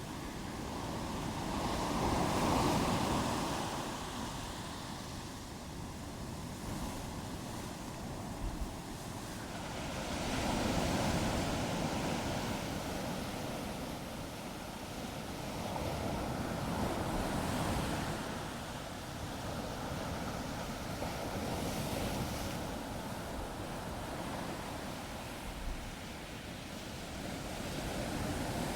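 Ocean waves breaking and washing on the shore, a steady rushing surf that swells and falls back in slow surges every six to eight seconds.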